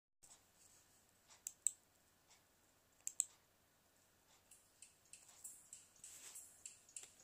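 Faint computer mouse clicks: a pair about a second and a half in, another pair about three seconds in, then lighter scattered ticks near the end.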